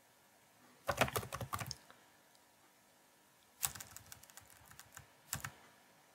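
Computer keyboard typing in two short bursts of key clicks, one about a second in and another near the middle.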